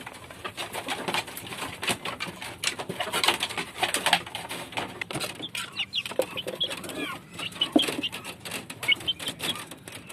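Flock of free-range village chickens feeding: many quick pecking clicks with soft low clucking, and short high calls mostly in the second half.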